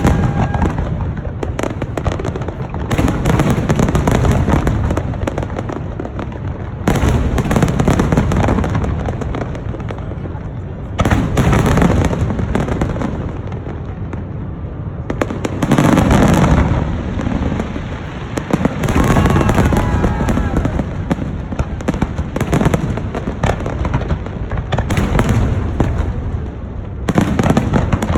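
Fireworks display: aerial shells burst with sudden loud bangs every few seconds, each trailing off in a long rumbling echo, with crackle and low rumble between.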